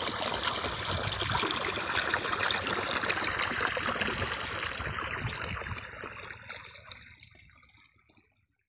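Irrigation water flowing and trickling across a flooded maize field, a steady rush that fades out over the last few seconds.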